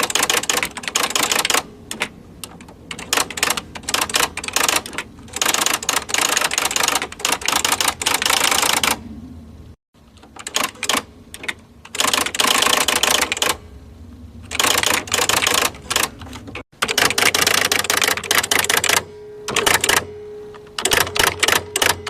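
Typewriter typing in rapid bursts of key strikes, with short pauses between the bursts and a brief steady tone near the end.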